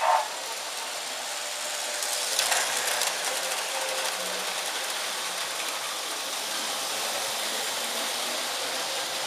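Lionel model trains running on a layout: a steady whirring clatter of small electric motors and metal wheels on the track, with a brief burst of clicking about two and a half seconds in.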